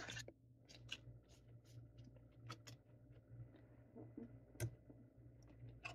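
Near silence: faint room tone with a low steady hum and a few soft, scattered ticks, one a little clearer late on.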